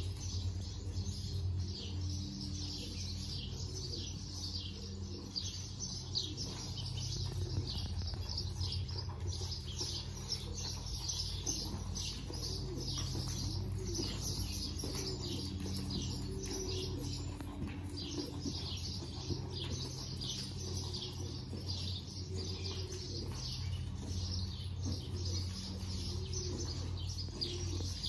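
Birds chirping continually in quick short notes, with low wavering cooing calls underneath and a steady low hum.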